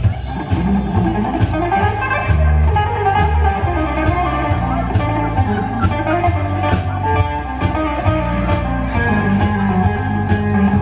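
Live rockabilly trio playing an instrumental passage with no vocals: hollow-body electric guitar over upright bass and a drum kit keeping a steady beat.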